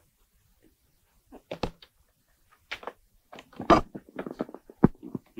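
Handling noise at a lectern, from microphones and papers being picked up and set down: a string of knocks, clicks and rustles that starts about a second and a half in, the loudest knock just under four seconds in.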